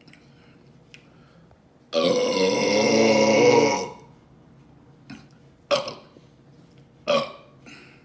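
A woman's single long, loud burp lasting about two seconds, brought up by drinking cherry Coca-Cola. It is followed by a few short, quieter sounds.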